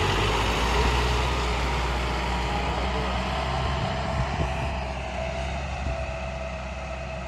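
MR70 farm tractor's diesel engine running steadily while pulling a drill seeder. The sound slowly fades, as if the tractor is moving away.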